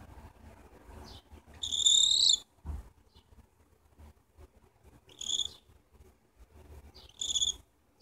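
Cockatiel giving three high, steady-pitched chirps while having its head scratched, the first longer and louder than the two later ones; a soft low bump follows just after the first chirp, with faint rustling of the petting hand throughout.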